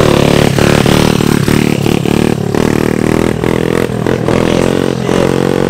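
An engine running with a steady buzzing note that wavers and breaks up irregularly, with rattling over it.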